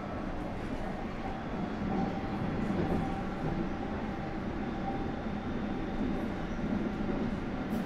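London Underground S7 stock train (Bombardier Movia) running between stations, heard from inside the car: a steady rumble of wheels on track, with a faint steady whine and a few light ticks.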